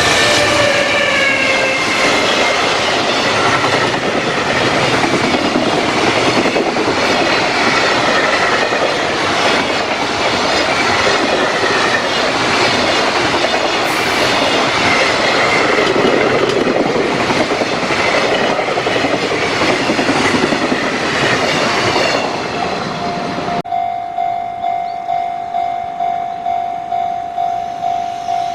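A JR Freight freight train running over a level crossing, its wagons clattering loudly over the rails. The crossing's warning bell rings throughout. About 23 seconds in the train noise stops abruptly, leaving the bell ringing on its own with a steady, even beat.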